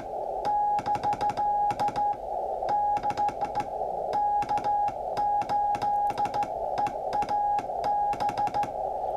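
The CW signal of a WRL Model 755 VFO on 160 meters, heard through a receiver: a single steady high-pitched tone keyed on and off in Morse-style dots and dashes, with clicks at the key transitions, over a steady receiver hiss.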